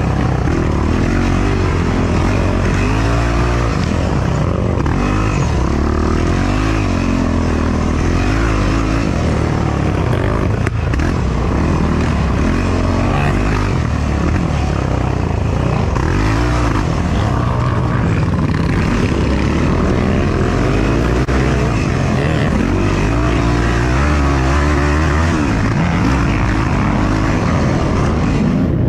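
Yamaha YFZ450R's single-cylinder four-stroke engine running hard at race pace, loud, its pitch repeatedly climbing and dropping back as the throttle is worked on and off.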